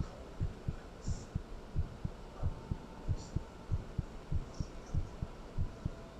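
A human heartbeat picked up close to the chest: an even run of short, low thuds, about three a second, over a steady hum.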